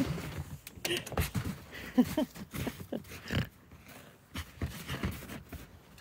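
Golden retriever nosing and snuffling through deep snow, making short, irregular breathy sounds.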